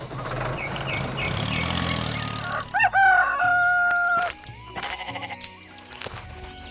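A single long animal call about three seconds in, rising at the start and then held steady for about a second and a half, over a busy background with music.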